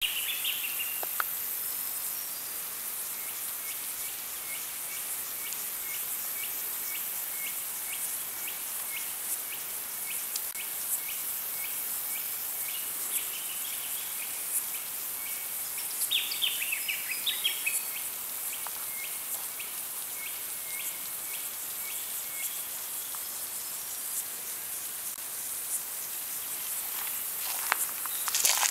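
Bush ambience: a steady high-pitched drone of insects, with a bird repeating a short note about twice a second through most of it and a brief burst of other bird calls about halfway. Footsteps rustle on leaf litter near the end.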